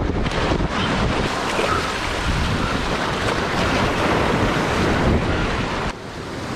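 Surf washing and foaming over a rocky shoreline, with wind buffeting the microphone. The rush dips briefly about six seconds in.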